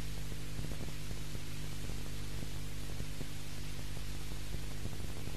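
Steady electrical mains hum under even tape hiss, the background noise of an old VHS recording of a TV broadcast, with faint scattered ticks and no music or voice.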